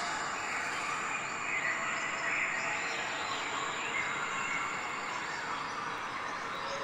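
Steady outdoor field ambience: an even hiss with faint scattered chirps.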